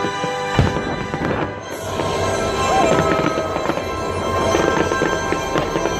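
Music playing together with aerial fireworks going off: shells bursting and crackling, with one deep bang about half a second in.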